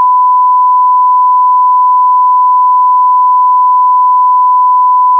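A loud, steady beep at one pure pitch, held without a break: a censor bleep edited in over the sound track, with all other sound cut out beneath it.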